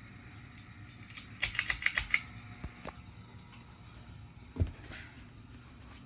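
Quick run of about seven sharp clicks, a little over a second in, from the beaded metal pull chain of a Harbor Breeze Whitestar ceiling fan being handled. A single dull thump comes near the end.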